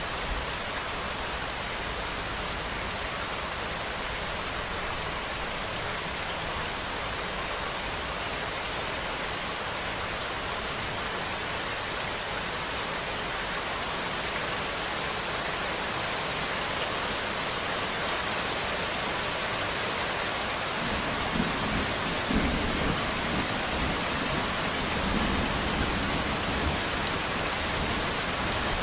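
Steady heavy rainfall, a dense even hiss of drops on surfaces. About two-thirds of the way in, a low rumbling joins beneath it.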